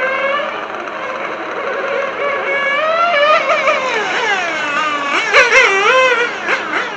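Small glow-fuel engine of a 1/8-scale on-road RC car revving and easing off as it laps the track. It makes a high-pitched whine that rises and falls in pitch, swinging up and down sharply in the second half as the car brakes and accelerates through the corners.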